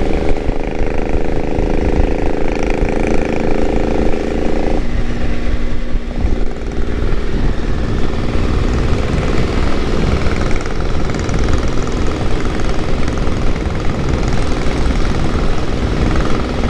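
Motorcycle on the move, filmed onboard a Triumph Tiger 955i: a steady engine drone over heavy wind buffeting and road rumble. About five seconds in the engine drone cuts off abruptly, leaving mostly wind and road noise.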